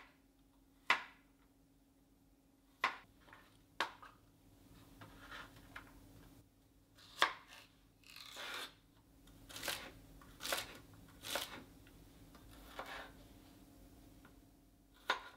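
Kitchen knife cutting garlic, celery and cherry tomatoes on a wooden cutting board: separate knocks of the blade on the board, about a second or more apart, with a short rustle near the middle.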